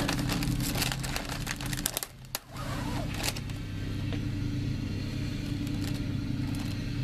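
A steady low mechanical hum with scattered light clicks and crackling over it. The sound drops out briefly about two seconds in.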